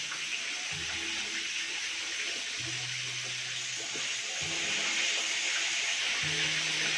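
Chicken frying in hot oil, a steady sizzle that grows a little louder about halfway through. Low music notes run underneath.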